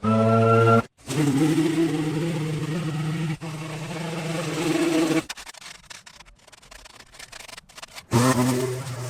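Small gasoline engine of lawn-care equipment running steadily at a constant speed, heard in short clips that cut off abruptly several times. In the middle there is a quieter stretch of a few seconds with only faint clicks and handling noise.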